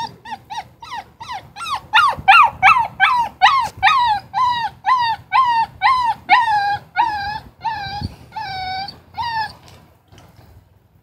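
A puppy whining and crying in a long run of short, high, rising-and-falling cries, about three a second, loudest two to four seconds in. The cries then slow into longer, steadier whines and stop near the end.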